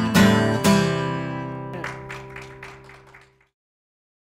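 Acoustic guitar strummed twice more and then left on a final chord that rings and slowly fades, ending the song; the sound cuts to silence near the end.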